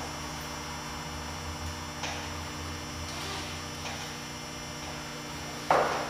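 Steady electrical mains hum with a few faint rustles, and one brief louder noise near the end.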